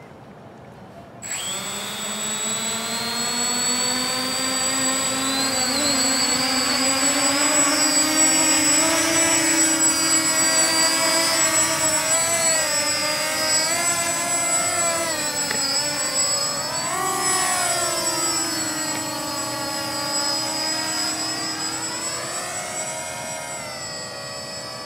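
Walkera Furious 320 quadcopter's brushless motors and propellers spinning up about a second in, then a steady whine as it lifts off and flies. The pitch climbs over the first few seconds, rises and dips with the throttle, and sinks toward the end.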